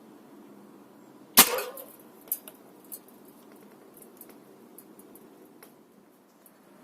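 A single sharp shot from a Snow Wolf M24 bolt-action airsoft sniper rifle, with a brief ring, followed by three lighter clicks over the next second and a few faint ticks after.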